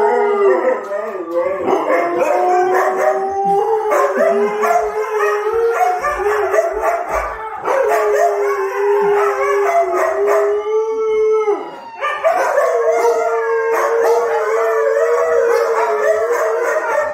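Four Siberian huskies howling together in a loud chorus of overlapping, long-held howls, set off by police siren sounds played to them. About twelve seconds in, one howl slides down and the chorus briefly drops before picking up again.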